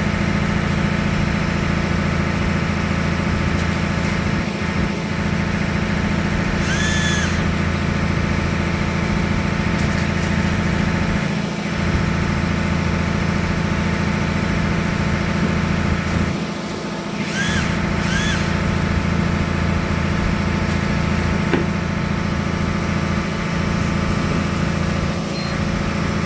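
Fishing boat's engine running steadily, a constant drone with several fixed tones. Three short arching high-pitched chirps cut in, about seven seconds in and twice close together near eighteen seconds.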